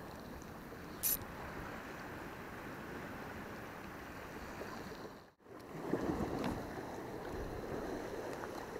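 Small sea waves washing over shoreline rocks, a steady rushing wash with a short sharp click about a second in. The sound drops out briefly a little past halfway and comes back louder.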